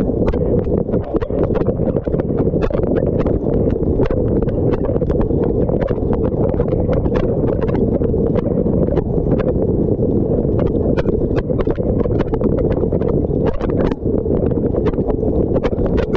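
Dishwasher wash cycle heard from inside the tub: water from the spray arms splashing steadily, with a rapid, irregular patter of sharp clicks as water strikes the camera and the tub walls.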